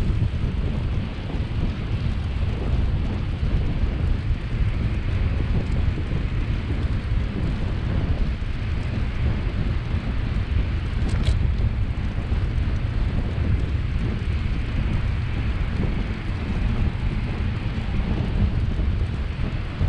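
Wind buffeting the microphone of a camera on a moving bicycle: a steady low rumble with a hiss above it. A brief high squeak about halfway through.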